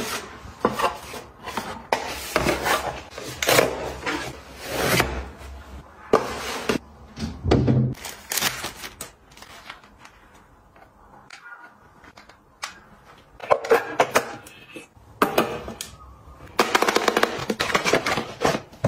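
Packaging being handled during an unboxing: cardboard box flaps and plastic wrap rustling, with scattered clicks and taps of containers. It eases off for a few seconds midway, then turns into dense crinkling of plastic wrapping near the end.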